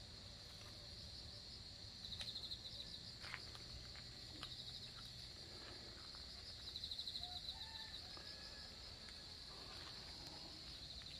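Faint insect chorus: a steady high-pitched drone with two louder pulsed trills, about two seconds and about seven seconds in, and a few faint clicks.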